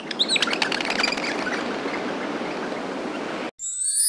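Cartoon nature ambience: birds chirping over a steady rush of running water. It cuts off suddenly about three and a half seconds in, and a bright twinkling chime comes in as the title appears.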